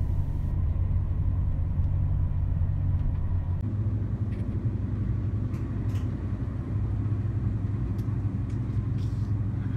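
Steady low rumble of a Deutsche Bahn passenger train, heard from inside the carriage as it runs, with a few faint clicks.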